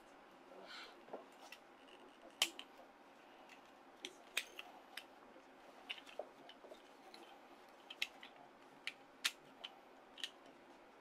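Sharp plastic clicks and snaps from the ARCHECORE Wolf Freki transforming figure as its parts are folded by hand and clicked into place, converting it into a fist. The clicks come irregularly, about a dozen, the loudest about two and a half seconds in.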